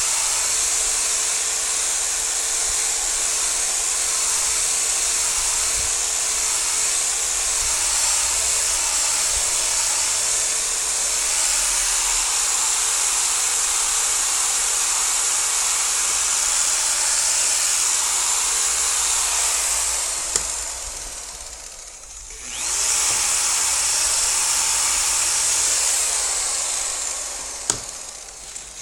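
Electric polisher running steadily, buffing the repainted side panels of a car. It winds down about 20 s in, starts up again a couple of seconds later, and stops again near the end.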